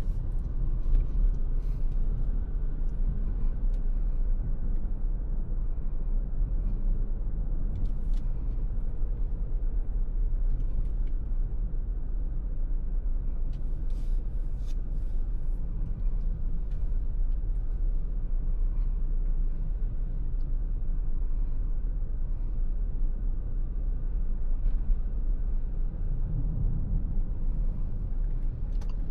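Ford Territory hybrid SUV driving along a road: a steady low rumble of road and tyre noise, with a few faint ticks.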